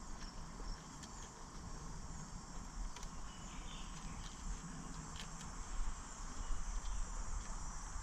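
Steady high chirring of insects, with a few faint clicks as the steering cable and spindle parts are handled, about three and five seconds in.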